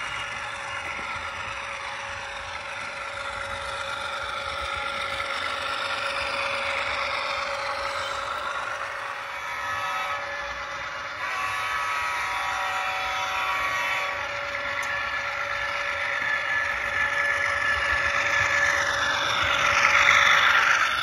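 Sound decoder in an HO-scale ES44AC model locomotive playing its GE diesel engine sound through the model's small speaker while the train runs. The sound changes in tone about halfway through and is loudest near the end as the locomotive passes close.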